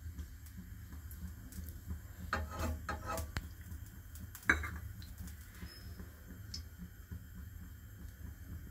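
Kitchenware clinking against a non-stick frying pan as oil is put in to heat: a few ringing clinks about two to three seconds in and one sharp knock about four and a half seconds in, over a steady low hum.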